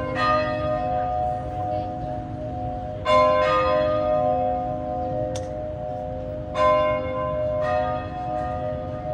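Church bells ringing: about five strikes of bells of different pitches, each ringing on and overlapping the next, with a steady hum of the lingering notes beneath.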